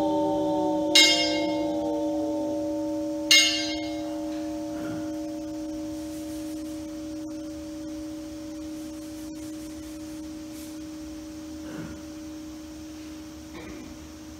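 A Buddhist temple bowl bell rings out with a steady tone that slowly fades. Twice, about a second in and again about two seconds later, a sharp, bright strike rings over it.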